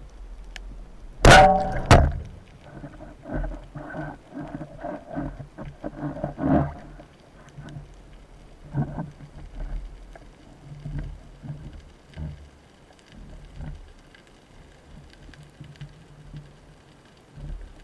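Underwater sound during a breath-hold spearfishing dive: two sharp knocks about a second in, then a quick run of short pulsed sounds and scattered softer clicks.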